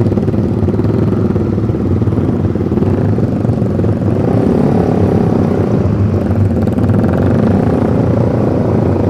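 Motorcycle engine running at low speed through a Pro Liner Short aftermarket exhaust on a Suzuki GSX, its pitch rising and falling slightly midway, with other motorcycles around it.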